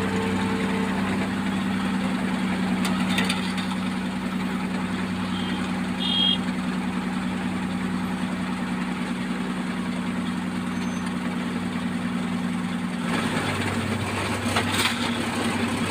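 Heavy diesel engine of road construction machinery running steadily at idle, its hum shifting in pitch about thirteen seconds in.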